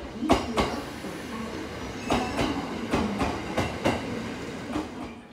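Train wheels clacking over rail joints as a train rolls past a platform. The clacks come in quick pairs, several pairs over a few seconds, over a steady rumble.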